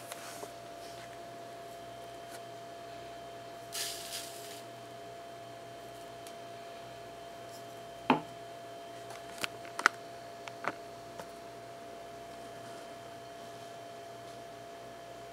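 Pour-over coffee preparation: ground coffee rustles into a paper filter in short hissing pours, the louder one about four seconds in. About eight seconds in comes a sharp knock, then a few lighter clicks from handling the canister and kettle. A faint steady hum tone runs underneath.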